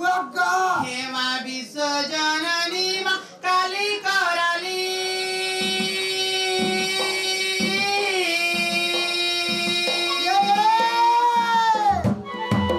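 A singer's voice through a microphone, sliding and wavering in pitch, backed from about four seconds in by long held electronic keyboard chords and a few scattered drum beats; near the end the voice holds one long note that rises and falls.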